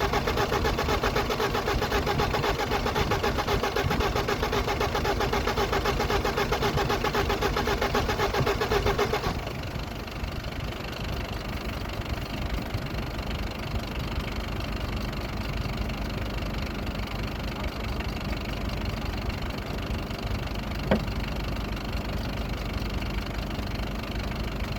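BMW E34 engine cranking on the starter in a fast, even rhythm without catching, a sign that it is not starting. The cranking stops suddenly about nine seconds in, leaving a quieter steady noise with a single sharp click near the end.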